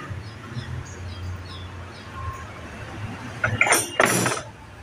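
Metal tools and motorcycle engine parts clinking during hand assembly work, with a cluster of sharp clinks and knocks about three and a half seconds in, over a steady low hum.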